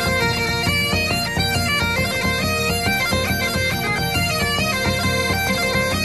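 Bagpipe music: a melody of quick stepping notes over a steady drone.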